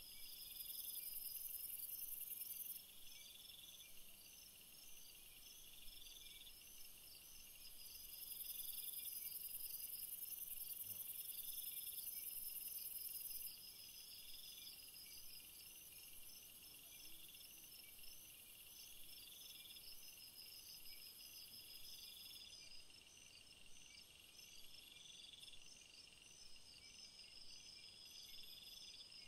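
Faint chorus of insects chirping in several overlapping, steady repeating rhythms. A higher, hissing insect buzz joins twice, for about two seconds near the start and for about five seconds in the middle.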